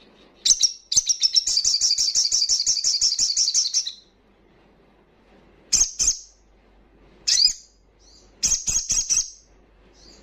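Sunbird (sogon) singing: a high, fast trill of about eight notes a second lasting roughly three seconds, then a few short sharp calls and a brief chattering burst near the end.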